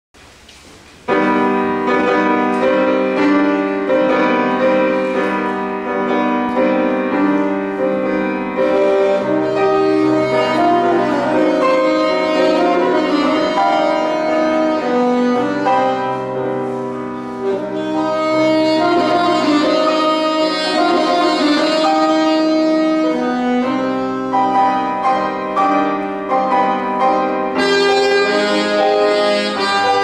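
Saxophone and grand piano playing a tango together, the music starting about a second in.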